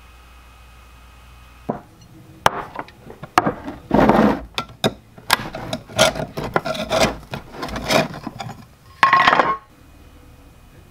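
A screwdriver prying the lid off a metal can of polyurethane: a run of sharp clicks and scraping strokes of metal on the can's rim, with a louder, briefly ringing clank about nine seconds in as the lid comes free.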